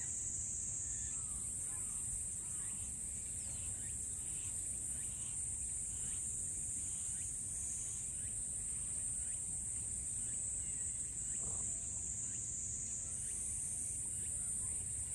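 Summer cicadas droning steadily in one continuous high-pitched chorus, over a low outdoor rumble.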